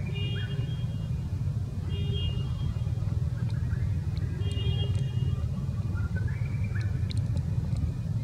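A steady low rumble throughout, with a few faint high-pitched calls over it, some rising in pitch.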